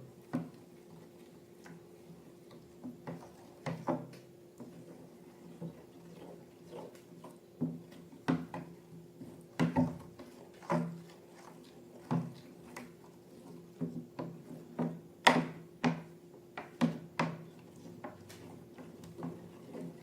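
Irregular clicks and knocks of objects being handled, roughly one a second and sometimes in quick pairs, the loudest about 15 seconds in, over a steady low hum.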